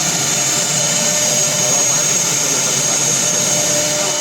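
CNC router running steadily: an even machine noise with a thin, high, steady whine on top.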